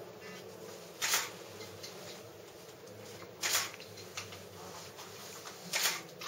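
Three short rustling noises, about two seconds apart, over a faint steady hum.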